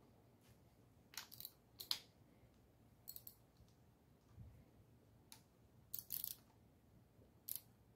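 Faint, sharp metallic clicks of a socket wrench working the rocker-arm nuts of a hydraulic-lifter engine, coming in short clusters every second or two while the rockers are snugged down towards zero lash.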